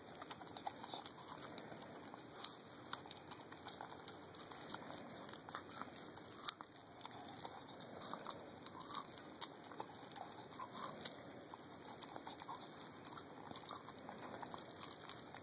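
Brittany spaniel chewing corn off the cob held in a hand: many small, irregular crunches and clicks of teeth scraping kernels from the cob.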